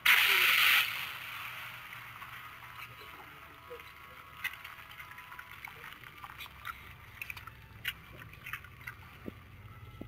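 Anime fight sound effect: a loud impact blast lasting under a second, then a fading hiss with scattered faint crackles.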